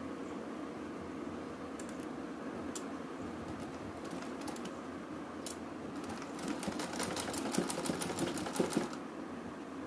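Black domestic sewing machine stitching: a few separate clicks at first, then a rapid run of stitching clicks for the last few seconds, over a steady background hum.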